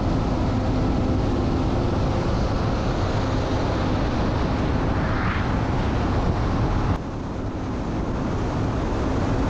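Vehicle engine running steadily at cruising speed, with road and wind noise. The sound cuts abruptly about seven seconds in and comes back slightly quieter.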